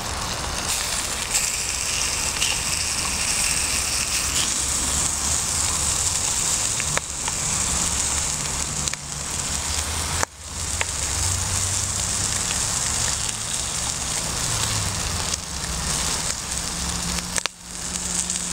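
Bacon frying in hot grease in a titanium plate, a steady sizzle and crackle that dips briefly twice.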